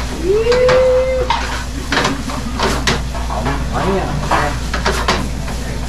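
Rice being stir-fried in a frying pan over a gas burner: a metal utensil scrapes and clacks against the pan in quick, uneven strokes over a sizzle. Near the start a single clear note rises and holds for about a second.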